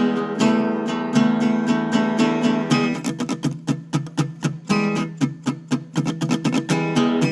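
Instrumental guitar music: ringing chords for about three seconds, then a quick, even rhythm of short plucked notes.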